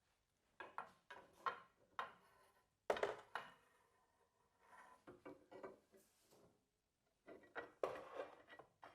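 Metal parts of a BMW R1250 GS crash bar and highway peg knocking and clinking as the bar is worked back into position: scattered short knocks in clusters, the loudest about three seconds in.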